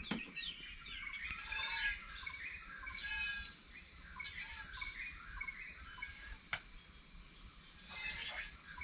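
Outdoor rural ambience: a steady, high insect drone with many birds chirping and calling over it, and a single faint click about two-thirds of the way through.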